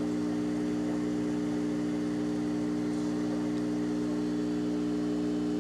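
A steady low hum made of several held tones over a faint even hiss, unchanging throughout.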